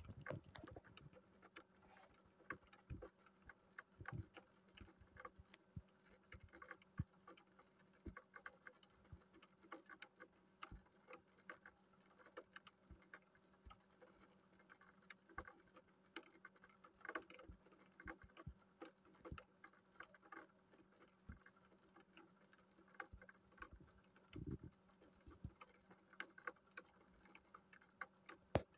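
Near silence: faint scattered clicks and ticks over a low steady hum.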